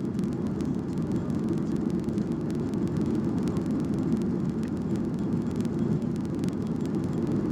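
Boeing 737-800 airliner cabin noise: a steady, deep rumble of the jet engines and airflow, with frequent light ticks and rattles.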